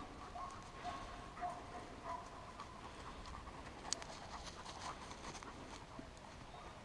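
Irish setter panting and sniffing as it searches through dry grass by scent for a downed quail, its steps rustling the grass, with one sharper click about four seconds in. A faint, steady two-note tone comes and goes behind it.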